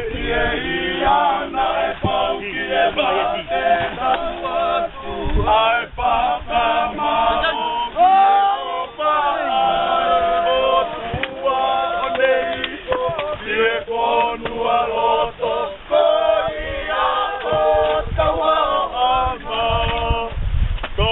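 A group of young men singing a gospel song together, unaccompanied, in several voices with held notes.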